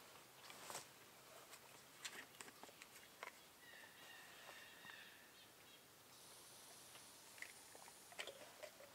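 Near silence: scattered faint clicks and ticks, with a faint high whine lasting about a second and a half around four seconds in.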